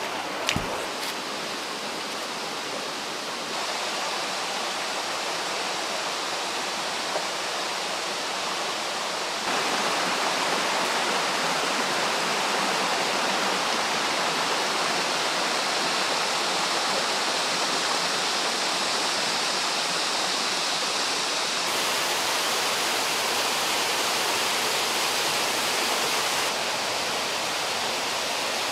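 Rushing water of a rocky jungle stream and waterfall, a steady hiss that jumps up or down in level a few times. A short sharp knock sounds about half a second in.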